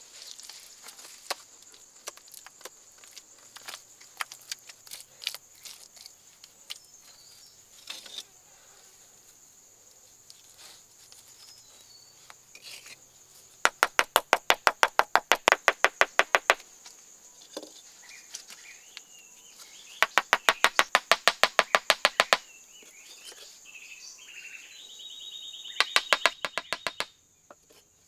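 A steady, high insect drone of crickets or cicadas, with scattered clicks and then three runs of rapid, even tapping, about ten taps a second, each lasting one to three seconds. The tapping is the loudest sound.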